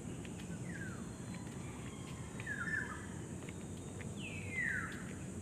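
Birds calling outdoors: three separate downslurred calls, the loudest a longer falling call near the end, over steady low background noise.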